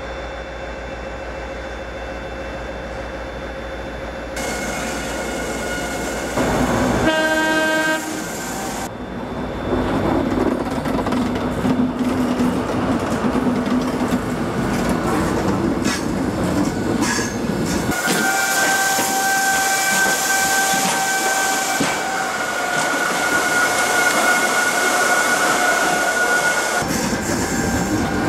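InterCity 125 High Speed Train running in, with one short blast of its horn about seven seconds in. Then its Mark 3 coaches roll past on the curved track, with a steady high wheel squeal through much of the second half.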